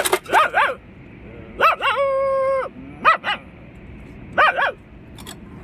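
A man imitating a dog's bark: short barks, mostly in pairs, about every second and a half. About two seconds in a steady held tone lasts under a second.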